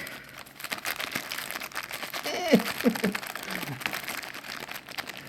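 Crinkling of a figure's black blind bag as it is squeezed and worked in the hands while someone tries to open it. There is a short muttered voice near the middle.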